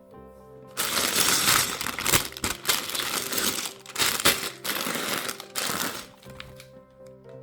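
Lego set packaging crinkling loudly as it is handled and opened, with a few sharper rustles, fading out about six seconds in. Background music plays throughout.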